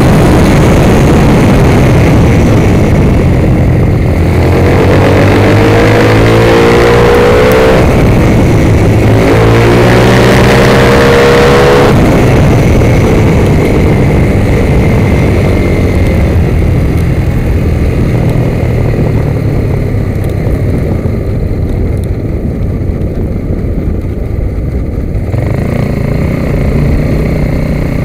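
Motorcycle engine accelerating hard, its pitch climbing in two sweeps through the gears, over heavy wind rush on the bike-mounted microphone. About halfway through the engine backs off to a lower, duller rumble for a corner, then picks up again near the end.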